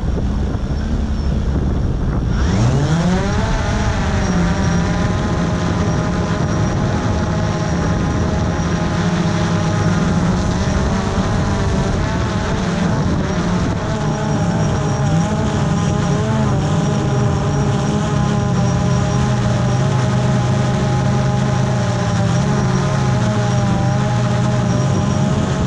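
DJI quadcopter drone's motors and propellers, heard at close range, spinning up with a rising whine about two and a half seconds in as it lifts off. It then hovers and climbs with a steady multi-tone buzz that wavers slightly in pitch. For the first couple of seconds, before the spin-up, wind rumbles on the microphone.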